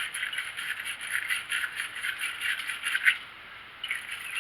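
Small wire brush scrubbing corrosion off car battery cable terminals in quick back-and-forth strokes, about four a second, cleaning them for a good connection. The scrubbing pauses briefly near the end, then starts again.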